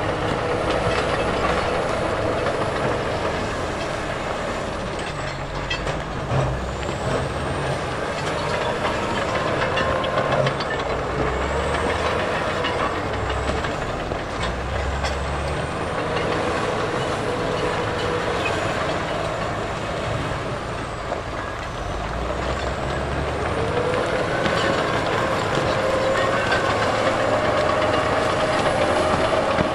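Heavy diesel construction machinery working, its engine running continuously under load.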